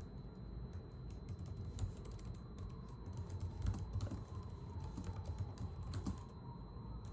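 A run of irregular light clicks and taps over a steady low rumble, with a faint steady high tone.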